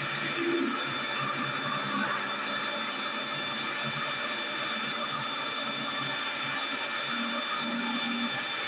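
Steady background hiss with several faint, steady high-pitched tones running through it, and no distinct event.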